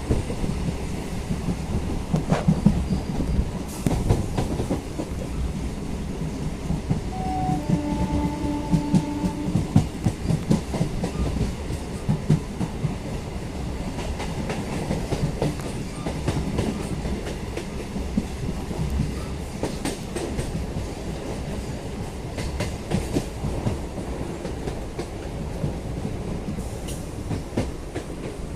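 Electric suburban local train running along the line, its wheels clattering over the rail joints under a steady rumble. A brief tone sounds about seven to nine seconds in.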